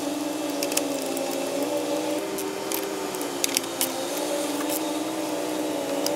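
A steady machine hum runs throughout, with scattered light clicks and ticks of a hand tool working the front brake caliper bracket bolts.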